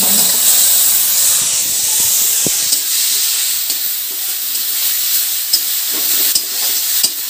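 Onion and spice paste sizzling in hot oil in a kadai, stirred with a metal spatula. The spatula scrapes along the pan and gives a few sharp taps against it.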